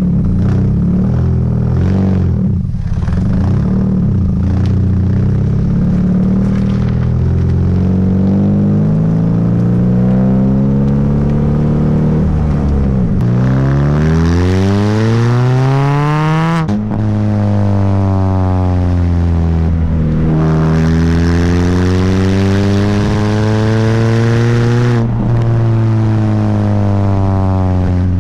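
R50 Mini Cooper's 1.6-litre four-cylinder engine exhausting through a straight pipe with the muffler deleted. It runs steadily for a while, then the revs climb and fall off sharply twice before climbing again, like accelerating away through the gears with an upshift at each drop.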